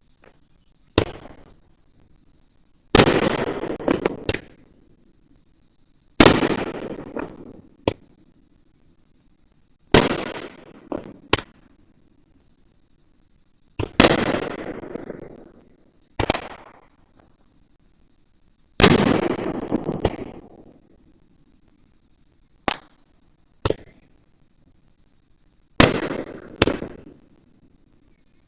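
Aerial firework shells bursting: a sharp bang every few seconds, each trailing off over about a second, with some smaller single cracks in between.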